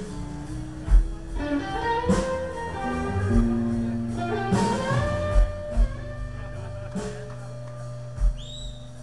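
Live blues band playing through the stage PA: electric guitars with held notes that bend in pitch, over a bass line and a few low drum thumps.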